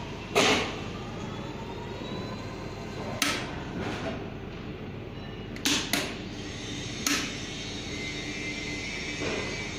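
A 300 kg welding positioner's turntable drive runs with a steady motor-and-gear whir as the chuck rotates. A few short sharp clicks come from the switches on its control box being worked.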